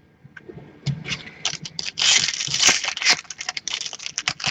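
Card packaging and trading cards being handled: crinkling and rustling with many small clicks and scrapes, and a denser crinkle about two seconds in.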